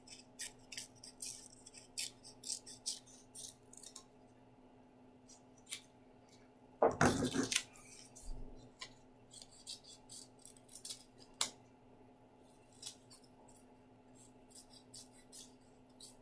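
Small scissors snipping paper in a string of short, irregular snips while small paper ears are cut out. About seven seconds in there is one louder, longer rustle of handling noise.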